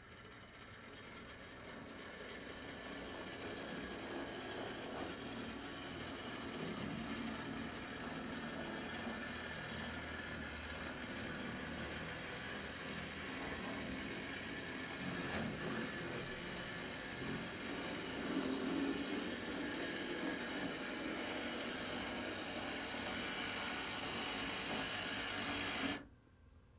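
Samhongsa-built HO-scale brass model of a Southern Pacific U50 diesel locomotive running along its track, its motor and gear drive making a loud, steady mechanical noise: a very noisy running mechanism. The noise grows louder over the first few seconds and cuts off suddenly near the end.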